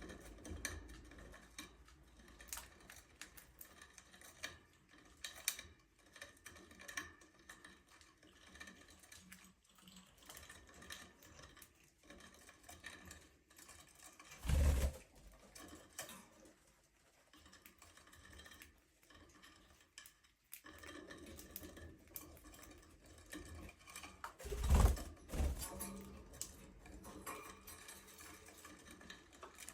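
Budgerigars chattering softly, mostly small clicks and short chirps, with two louder bumps about halfway through and near the end.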